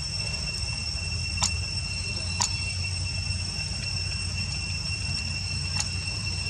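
Insects droning steadily at a high, even pitch over a low rumble, with a few sharp clicks about one and a half, two and a half and near six seconds in.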